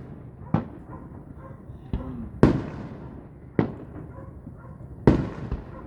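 Fireworks bursting in the distance: five sharp booms, each followed by a rolling echo, the loudest about two and a half and five seconds in.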